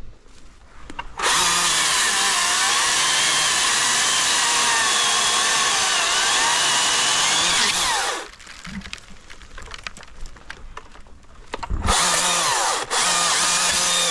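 Husqvarna 542i XP battery chainsaw running at full speed with a high electric whine for about seven seconds, its pitch wavering, then winding down. After a few seconds' pause it runs again in a short burst that cuts out briefly once.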